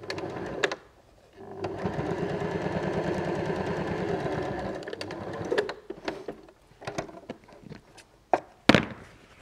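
Janome domestic sewing machine top-stitching a seam, a short burst at the start and then a steady run of about three and a half seconds before it stops. A few sharp clicks and knocks follow near the end.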